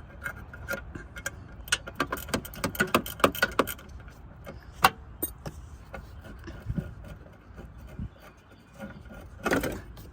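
Ratchet wrench clicking as a 10 mm bolt is backed out of the horn bracket: a quick run of clicks in the first few seconds, then one sharper click and a few scattered metal knocks.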